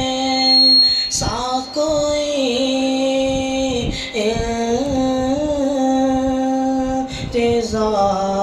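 A boy singing a naat unaccompanied, drawing out long ornamented notes. He breaks briefly for breath about a second, four seconds and seven seconds in, and the pitch sinks lower near the end.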